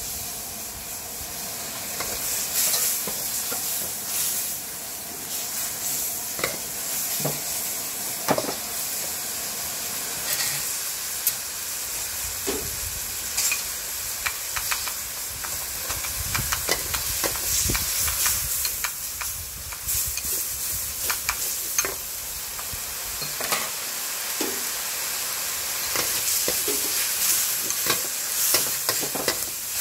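Pad thai noodles sizzling in a hot wok, with a metal spatula repeatedly scraping and clacking against the wok as they are stir-fried.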